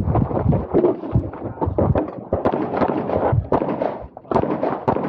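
Rapid handgun shots, several a second in irregular strings, with a short pause about four seconds in before the firing resumes.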